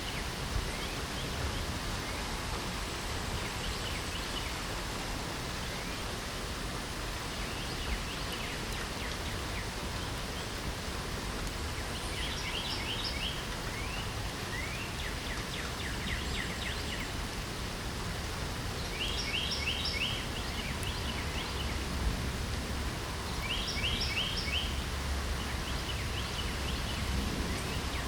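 Steady light rain falling, with birds singing over it. One bird repeats the same short, rapid trill three times, with fainter chirps from others in between.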